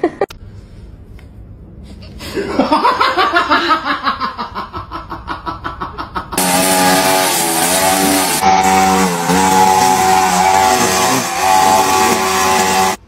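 Petrol string trimmer running steadily, its pitch dipping briefly now and then, cutting in abruptly about six seconds in. Before it, for about four seconds, a fast pulsing sound that slides down in pitch.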